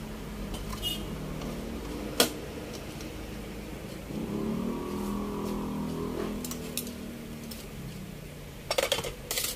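A circuit board and cable connector being handled and fitted on a TV chassis: a sharp click about two seconds in, then a clatter of hand tools being picked up near the end, over a steady low hum. For a few seconds in the middle a louder drone with a wavering pitch rises and fades.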